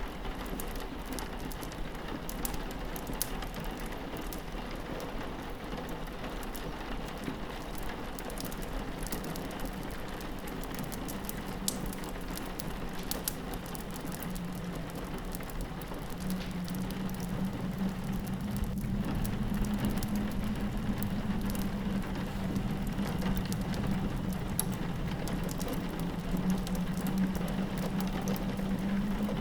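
Rain pattering on window glass mixed with a crackling wood fire, many small ticks and pops over a steady hiss. A low drone underneath swells louder about halfway through.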